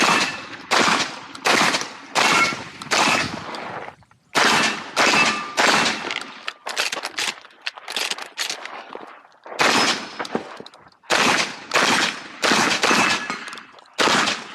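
Shotgun fired rapidly in a competition course of fire, about twenty shots roughly half a second apart. The shots come in strings, broken by a short pause about four seconds in and a longer one of about a second and a half near the eight-second mark. Each shot rings out briefly after the blast.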